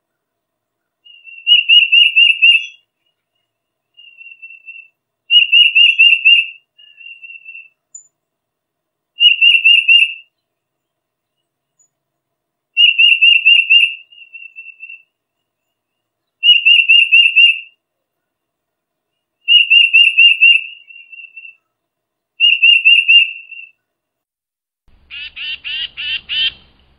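Tufted titmouse whistling its song, repeated phrases of four or five quick clear notes every few seconds, with fainter short phrases in between. Near the end comes a harsher, raspier burst of four notes.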